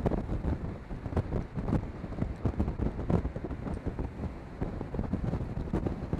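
The 1939 Cadillac's flathead V16 under way, its low running noise mixed with heavy, gusty wind buffeting the microphone.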